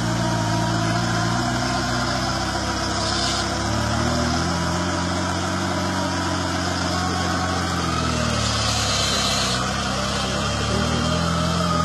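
Off-road buggy engine running at low revs as the buggy crawls over a steep muddy bank, its pitch rising and falling several times as the throttle is worked.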